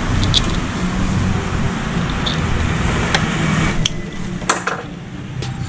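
A few short, sharp clicks and knocks from a cover being fitted over a freshly tightened e-bike battery wire terminal, over a steady background hum.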